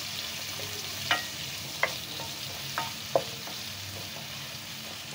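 Sliced onions and cumin sizzling steadily in hot oil in a metal kadhai while a spatula stirs them, knocking against the pan four times in the first few seconds.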